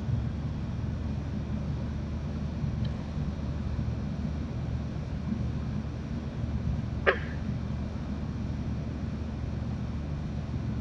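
Night marsh ambience: a steady low rumble, with one short, sharp call or click about seven seconds in and a faint tick a few seconds before it.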